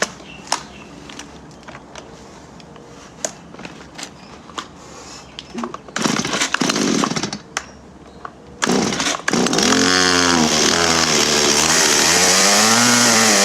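Stihl MS 170 two-stroke chainsaw being pull-started, catching about nine seconds in after a couple of pulls. It then runs loudly, its speed swinging up and down and sagging near the end, which the owner takes for the saw running out of fuel.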